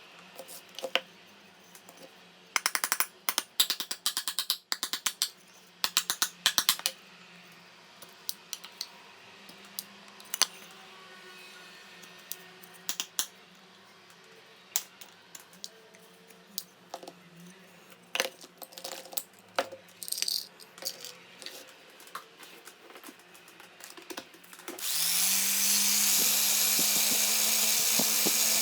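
Clicks and short rattles of small parts being handled. About three-quarters of the way in, a small high-speed power tool, like a rotary tool or drill, spins up with a rising whine and then runs steadily and loudly.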